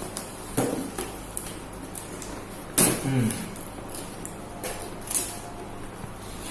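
Handling noises of unpacking: scattered clicks and rustles of packaging and parts being moved, with a louder knock about three seconds in.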